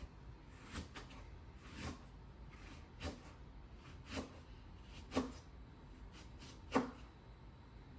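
Kitchen knife slicing an onion thinly on a cutting board: six separate knocks of the blade reaching the board, about one a second, the last one the loudest.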